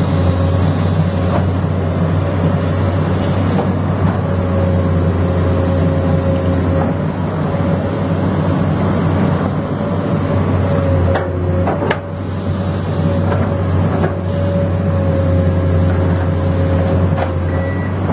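Komatsu excavator's diesel engine running steadily with a continuous whine over the low drone, and a few knocks about two-thirds of the way through. A reversing alarm starts beeping near the end.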